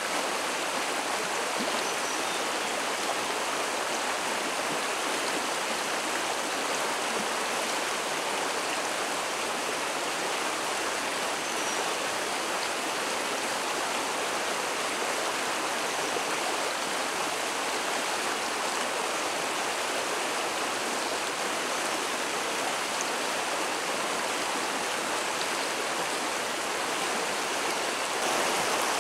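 Shallow river rushing over rocks and stones: a steady, even water noise, a little louder near the end.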